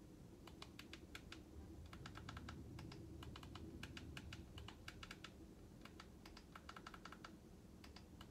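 Faint clicking of TV-box remote-control buttons, pressed over and over in quick runs of two to four, to step across an on-screen keyboard and enter characters.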